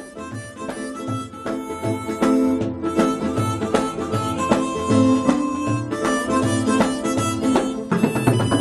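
Several harmonicas (mouth organs) playing an old Bollywood song melody together in sustained notes, over a steady low beat.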